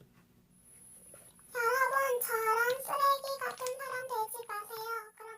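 A high-pitched, child-like voice singing or chanting in a quick string of short, level-pitched syllables. It starts about a second and a half in and runs for about four seconds.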